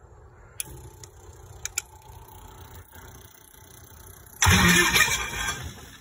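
A few light clicks, then about four and a half seconds in the airboat's Lycoming O-320 H2AD four-cylinder air-cooled aircraft engine starts suddenly and loudly on its newly fitted Champion UD21 spark plugs, fading off near the end.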